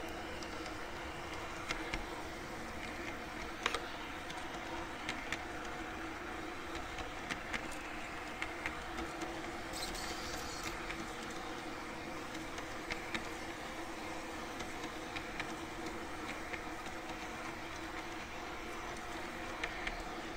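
Model garden-railway train running, heard from a camera riding on it: a steady hum of the electric drive and gears, with short clicks at irregular intervals from the wheels on the track.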